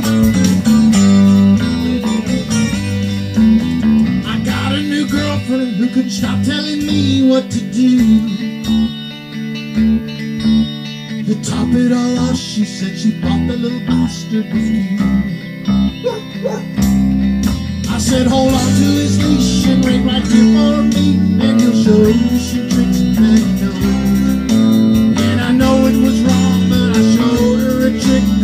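Live band music: electric guitars, a bass guitar and an accordion playing together.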